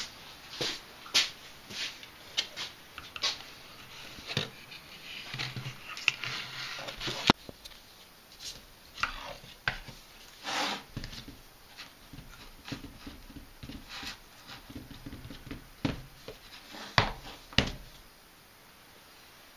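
Handling noise: irregular clicks, taps and knocks as tools and parts are picked up, turned over and set down on a wooden workbench. The belt sander being handled is switched off.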